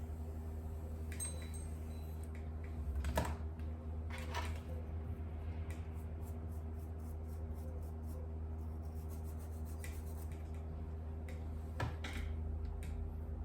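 Steady low electrical hum from bench equipment, with a few light clicks and taps of small tools on the circuit board: about three seconds in, again a second later, and near the end.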